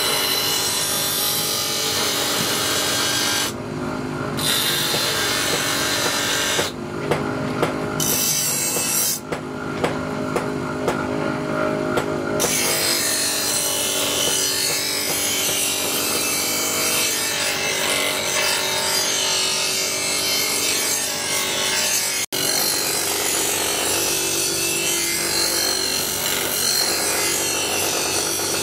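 A power tool grinding or sanding in steady passes, with a few short breaks where it is quieter and knocks and clicks of handling come through.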